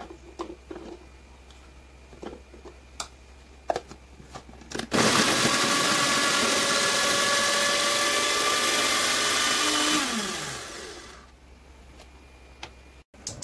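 A few plastic clicks as the food processor's bowl and lid are fitted. Then its motor starts suddenly, runs steadily for about five seconds chopping onion, and winds down with a falling whine.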